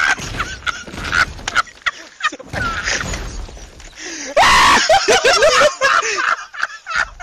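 Film sound effects of a body being slammed again and again into a stone floor: a run of heavy thuds and crunching rubble. About four and a half seconds in comes a loud cry, followed by broken groans with swooping pitch.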